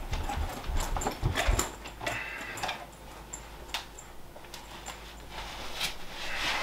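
Footsteps thudding on the floor, then scattered clicks and rustles as a person moves about with a bag, with a brief pitched sound about two seconds in.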